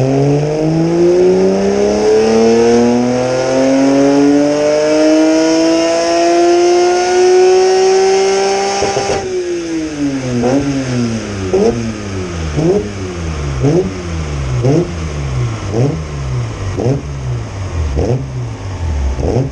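BMW S54 3.2-litre straight-six in a Dax Rush kit car making a full-throttle power run on a rolling-road dyno, its revs climbing steadily for about nine seconds. Then the throttle shuts abruptly and the revs fall away, broken by short sharp blips about once a second.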